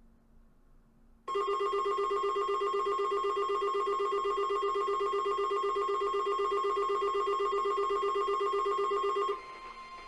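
Emergency Alert System attention signal: a loud, steady two-tone alert with a fast warbling beat. It starts about a second in and cuts off sharply after about eight seconds, leaving a fainter steady tone.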